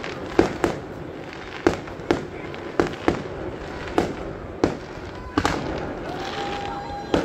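Aerial fireworks bursting: about ten sharp bangs in seven seconds at uneven intervals, each with a short echoing tail. A steady high tone comes in near the end.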